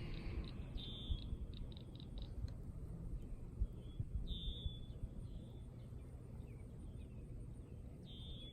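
A bird calling three times, a short high note each time, about three and a half seconds apart, over a steady low rumble, with a few small clicks after the first call.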